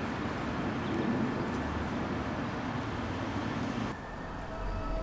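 Steady outdoor background rumble for about four seconds. It then cuts off abruptly and a low, sustained eerie music drone with a few held tones begins.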